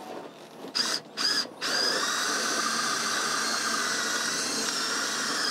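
Hand-held power drill boring into the aluminium foil tube of a headsail roller furler. Two short bursts about a second in, then steady drilling with a constant whine.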